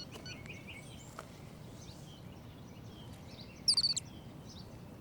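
Faint outdoor background noise. About two-thirds of the way in, a quick run of loud, high chirps, each falling in pitch.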